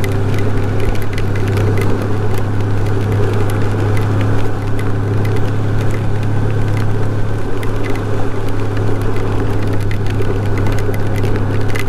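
Honda Gold Wing GL1800's flat-six engine running at a steady cruise, a low even drone under wind and wet-road noise.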